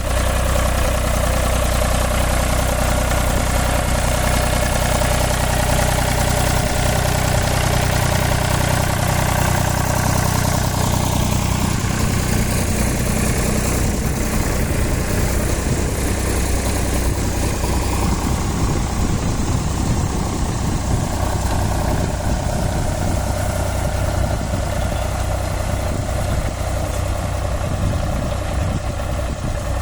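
Eicher 368 tractor's diesel engine running steadily with a potato harvester. About twelve seconds in, the steady engine pitch gives way to a rougher, rattling sound.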